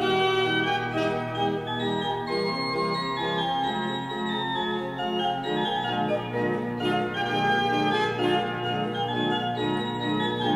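Historic 1809 Serassi pipe organ playing a sonatina, quick-moving upper notes over a held bass note.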